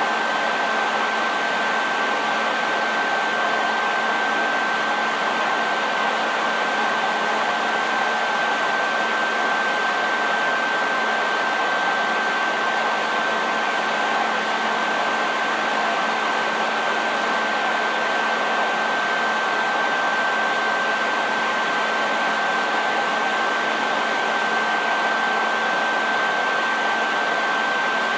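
Hair dryer running steadily: an even rush of blown air with a constant high whine from the motor and a low hum under it, never changing.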